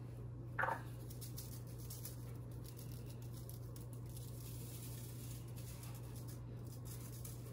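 Seasoned salt being shaken from a shaker onto a raw turkey: a faint patter of small taps over a steady low hum, with one brief louder sound just under a second in.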